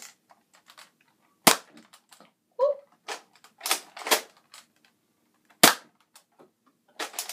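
Modded Nerf Alpha Trooper, its spring upgraded to a 5 kg spring, firing two sharp shots about four seconds apart, with smaller plastic clacks between them and near the end as the pump slide is racked to prime the next dart.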